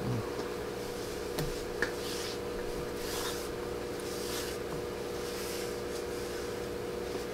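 Fabric-covered cotton rope rubbing and rustling as it is pulled and fed by hand, in soft swells about a second apart with a few small clicks, over a steady low hum.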